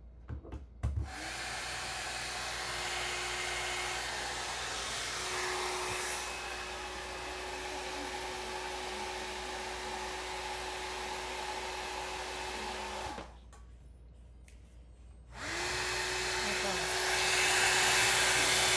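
Compact 1800 W hand-held hair dryer switched on with a click about a second in, running steadily with a hum and a rush of air. It cuts off about 13 seconds in, spins back up two seconds later, and steps up louder near the end as it is switched to a higher speed.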